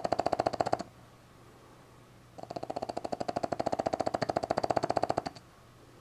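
Boston Terrier puppy snoring in its sleep: a rapid fluttering rattle on each breath. One snore ends just under a second in and another runs for about three seconds in the middle, with quiet breaths between.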